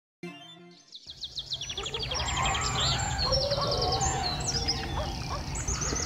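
Morning birdsong ambience: several birds chirping and trilling in quick repeated phrases, fading in about a second in over a low steady rumble. A short pitched sound is heard at the very start.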